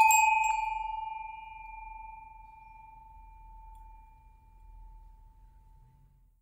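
A struck bell or chime ringing out once: one clear tone that fades away slowly over about six seconds, its higher overtones dying out within the first second or two.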